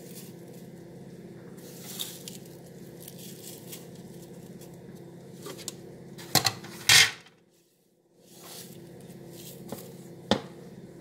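A container of garlic skins being handled, with light knocks and clatter over a steady low hum. The loudest knocks come close together about six and a half to seven seconds in, then the sound cuts out for under a second. Another knock comes near the end.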